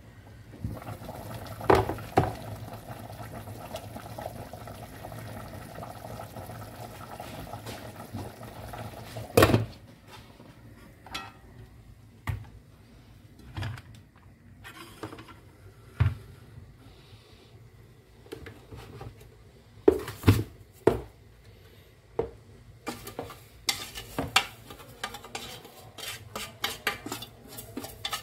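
Kitchenware clatter: a metal couscoussier steamer basket and utensils knocking against a bowl several times. Near the end comes rapid tapping and scraping as steamed couscous is emptied out of the steamer basket into a plastic bowl.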